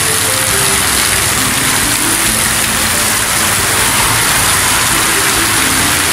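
Heavy rain pouring steadily onto the street and roof, with water streaming off the roof edge.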